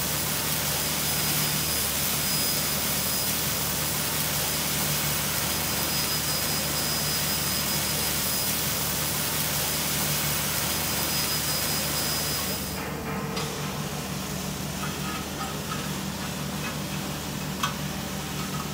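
Steady hiss and hum of metal-fabrication factory machinery, with a faint high whistle. About thirteen seconds in the hiss cuts off suddenly, leaving the lower hum and a few light clicks.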